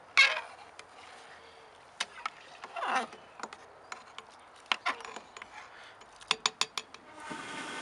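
Metal spoon clinking, scraping and tapping against a stainless steel cooking pot while stirring: a sharp knock just after the start, a scrape around three seconds, and a quick string of clinks in the second half. Near the end a steadier hiss begins.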